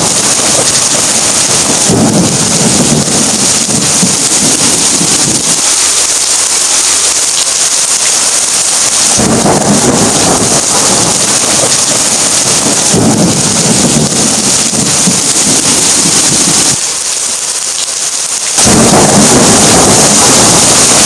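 Heavy rain pouring with repeated low rumbles of thunder. The sound drops for a couple of seconds near the end, then comes back louder.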